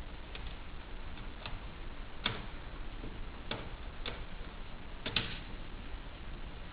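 Small screwdriver and screws clicking and tapping against laptop parts as a new screen is screwed into place: about six light, irregularly spaced clicks, the loudest a little past two seconds and at about five seconds, over a low steady hum.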